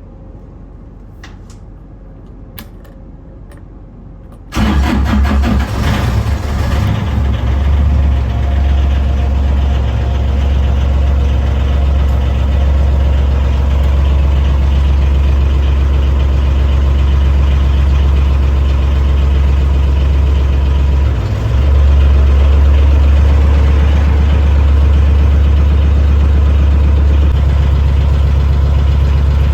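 Lifeboat diesel engine being started on newly fitted batteries: a few faint clicks, then it cranks and catches about four and a half seconds in and runs steadily, getting louder about two-thirds of the way through.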